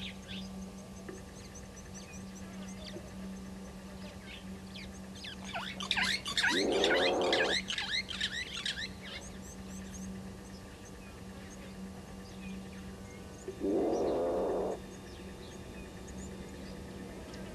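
Small birds chirping, with a dense flurry of chirps about six seconds in. Over them come two loud, low, pitched calls about a second long each, one about seven seconds in and one about fourteen seconds in, from an animal that is not identified.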